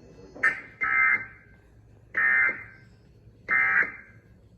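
Emergency Alert System end-of-message data tones: three short bursts of digital modem noise, each about half a second long and about a second apart, marking the end of the test message. A click comes just before the first burst.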